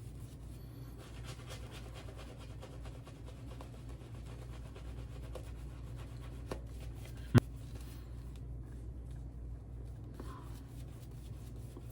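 Faint, scratchy rasping of a Tatara Amakuni single-edge safety razor, with a Kai Captain Titan blade, cutting through lathered stubble in short repeated strokes. There is one sharp click about seven seconds in.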